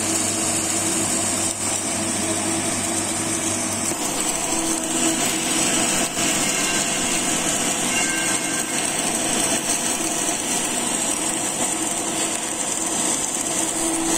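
CO2-shielded MIG welding arc running steadily as 1.2 mm 308L flux-cored wire lays a horizontal fillet weld on 304 stainless steel: an even, unbroken hiss.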